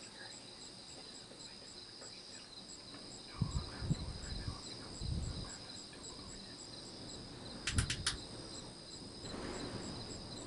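Steady high-pitched insect trilling with a regular pulsing chirp above it. Several low thumps come in between about three and five seconds and again near eight seconds, along with a quick run of sharp clicks.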